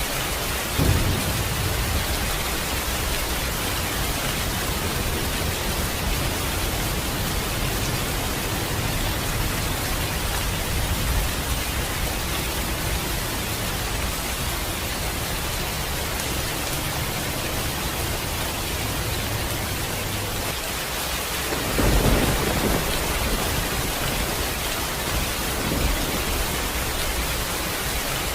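Steady rain hissing throughout a thunderstorm, with thunder rumbling about a second in and again about 22 seconds in, the later roll longer, and a smaller rumble a few seconds after it.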